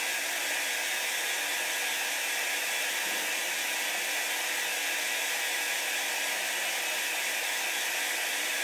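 Small corded handheld craft heat tool running steadily, a constant blowing whir with a faint steady hum, aimed at a chalk-paste transfer to dry the paste.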